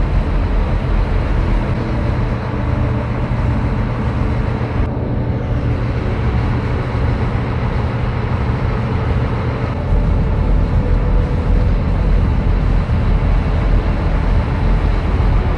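A large engine running steadily, with a constant low hum under a wash of noise; the sound changes slightly about five and ten seconds in.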